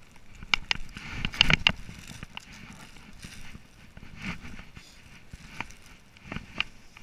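Footsteps on grass and the rustle of clothing close to the microphone, with irregular sharp clicks and knocks, a cluster of them in the first two seconds.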